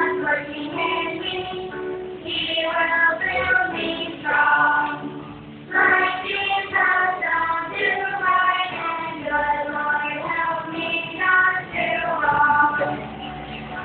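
A song: a voice singing a melody over music.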